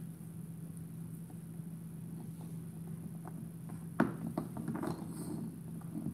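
Bernese mountain dog gnawing a large chew bone: faint scattered clicks of teeth on bone, then a sharp crack about four seconds in followed by a quick flurry of clicks and scraping.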